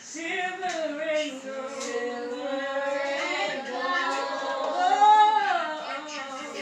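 A woman singing without words being made out, holding long notes that slide up and down; the loudest is a note that rises and falls about five seconds in.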